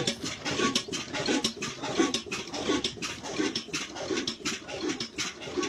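Large-flywheel stationary engine driving a water pump, running slowly with a steady chugging beat of about two thuds a second.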